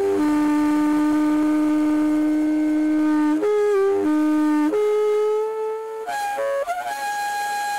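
Acoustic feedback through a metal bowl driven by a portable Bluetooth speaker, picked up by a piezo microphone. The bowl resonates with a loud, steady tone. It holds a low note for about three seconds, then jumps between several pitches and settles on a higher note near the end.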